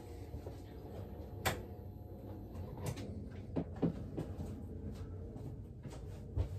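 A light switch clicks off, followed by a few scattered knocks and bumps over a low steady hum.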